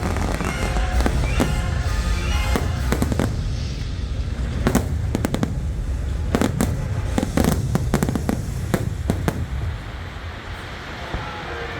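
Aerial fireworks bursting in rapid succession, many sharp bangs over a low rumble, with the show's music underneath. The bangs thin out near the end.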